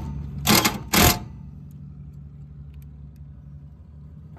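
Cordless drill spinning briefly in two short bursts about half a second apart, driving screws into the furnace's sheet-metal mounting plate. After that only a steady low hum remains.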